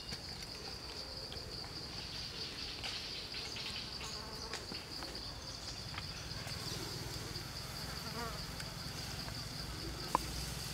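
Insects droning steadily in one high, unbroken pitch, with a single sharp tap near the end.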